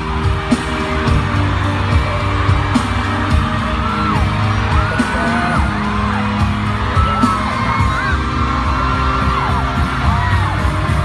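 Loud pop music with a heavy, steady beat, with voices whooping and yelling over it in rising and falling glides.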